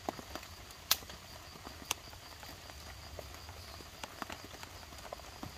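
Wood campfire crackling, with irregular sharp pops; two louder pops come about one and two seconds in.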